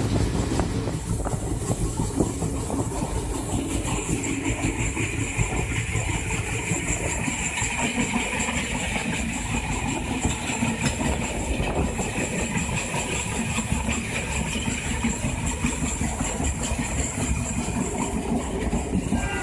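Train running along the track, heard from the open end of a carriage above the coupling: a steady rumble and rattle of wheels on rail. A higher steady hiss joins about four seconds in and carries on.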